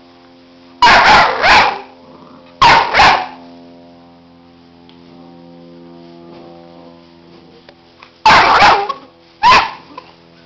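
Labrador puppies barking and yelping in four loud outbursts, two in the first few seconds and two near the end, over background music with sustained notes.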